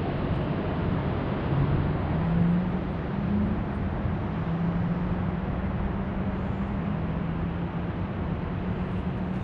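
Steady city traffic noise with a low engine hum that shifts up and down in pitch now and then.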